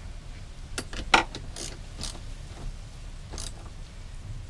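Socket ratchet with a 14 mm socket working a battery terminal nut as a negative cable is fastened back on: about five separate metal clicks and rattles, the sharpest about a second in.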